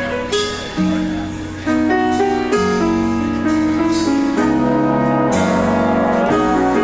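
Live big band jazz: the trombone section and saxophones play held chords over grand piano. The chords change every second or so.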